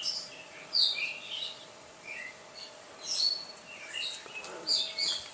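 Wild birds chirping: a string of short, high chirps and whistles, one after another, over a faint steady hum.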